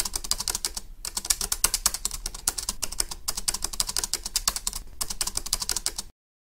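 Rapid computer-keyboard typing clicks, a typing sound effect laid over text being typed onto the screen, with a few short pauses, stopping suddenly about six seconds in.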